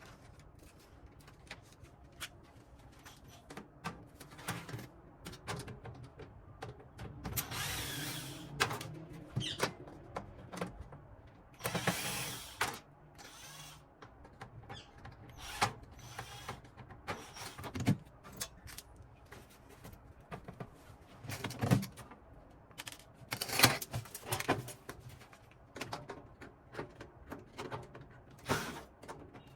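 Irregular small clicks, knocks and short scraping or rushing bursts of hands-on work on a PC case, with parts being handled and taken apart.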